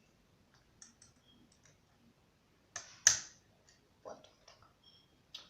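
Plastic snap-on parts of a Znatok electronic construction kit being handled and pressed onto the board: a few scattered clicks, the loudest about three seconds in.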